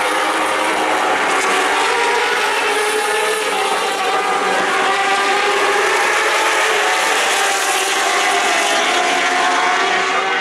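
Racing superbike engines at high revs, several engine notes overlapping at once as a group of bikes runs through the fast section.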